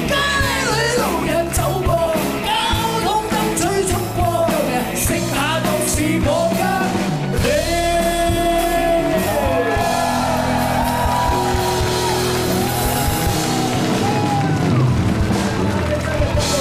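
Two men singing a Cantonese pop-rock song live into handheld microphones, trading lines over rock backing music.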